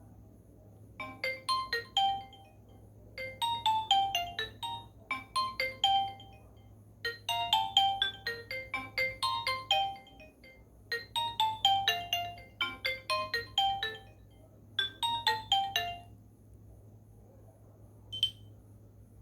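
Nokia N95 ringtone playing: a melody of quick, mostly falling notes in five short phrases with brief pauses between them. One short high beep comes about three seconds after the melody ends.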